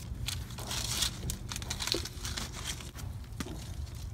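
Crinkling and rustling of the red plastic backing liner being peeled off the EZ Lip's adhesive tape, with scattered small clicks and taps as the rubber lip is pressed onto the bumper, over a steady low hum.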